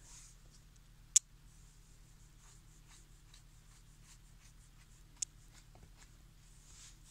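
Faint, soft strokes of a paintbrush laying paint on a foam squishy toy, with a sharp click about a second in and a smaller one around five seconds in.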